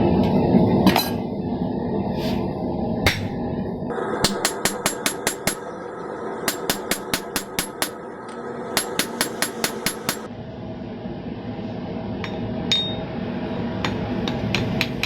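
Hand hammer striking hot steel on an anvil: a few single blows, then three quick runs of strikes at about five a second, with scattered blows near the end, over a steady rushing background.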